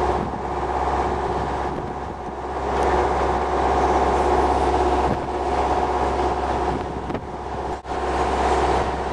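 Steady hum of an idling vehicle engine, with several constant tones over a rushing background.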